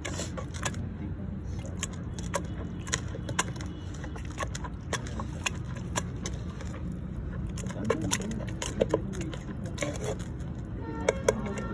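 Irregular light clicks and taps of utensils against a metal bowl while the chokha mash is mixed, over a steady low background hum.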